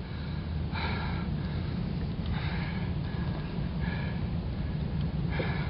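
A person breathing hard, four breaths about a second and a half apart, over a steady low rumble.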